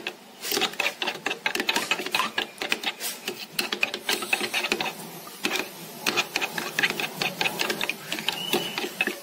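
Metal spoon stirring a liquid egg-and-milk mix quickly in a plastic bowl, clicking and scraping against the sides several times a second.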